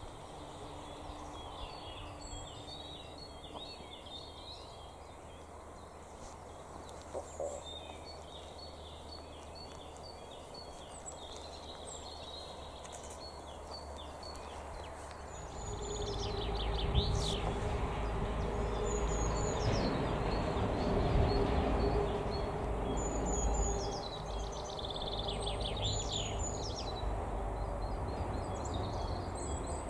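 Songbirds chirping and calling. About halfway in, a low rumble with a steady hum sets in and continues under the birdsong.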